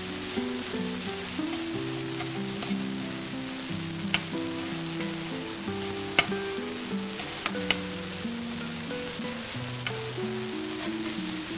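Small eggplants sizzling in hot oil in a frying pan, with a few sharp clicks of a utensil against the pan, the loudest about six seconds in. Soft background music with a slow melody plays underneath.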